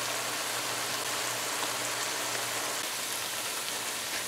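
Fried baigan (eggplant), eddo and shrimp sizzling steadily in a nonstick wok as the sauce cooks down uncovered.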